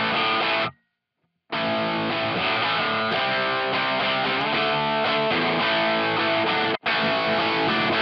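Distorted electric guitar: a semi-hollow Epiphone played through a Joyo British Sound amp-sim pedal and a Two Notes Torpedo Wall of Sound speaker-cabinet simulation. A short chord rings and stops abruptly just before a second in. After a pause the playing resumes with changing notes, broken off briefly near the end.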